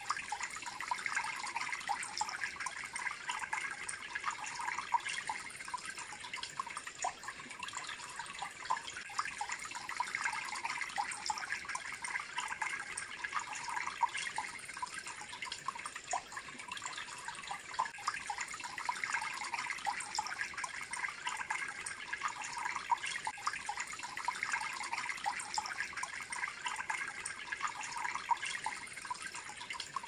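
Homemade cement bird bath fountain running: water welling out of the top ball and trickling and splashing down the fountain in a steady patter of small splashes.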